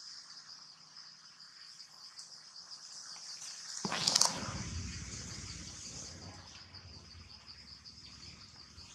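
Insects chirring steadily in a high, rapidly pulsing trill. About four seconds in there is a brief loud crackle, followed by a low rumble.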